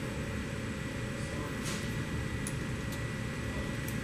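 Steady low machine hum with a thin constant whine over it, and a few faint metallic clicks as a wrench works the nuts on the wiper basket's top hub.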